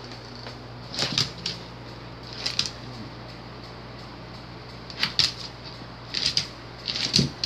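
A small dog's claws clicking and scrabbling on a hardwood floor in about five short bursts as it darts after a laser dot, over a steady low hum.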